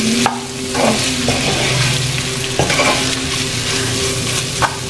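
Spatula stirring soaked cashews, onion and dried chillies frying in oil in a clay pot: a steady sizzle with scraping strokes against the pot every second or so. A steady low hum runs underneath.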